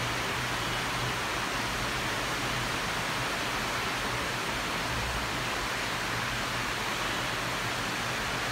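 Heavy rain falling in a storm: a steady, even hiss of rain with a faint low hum underneath.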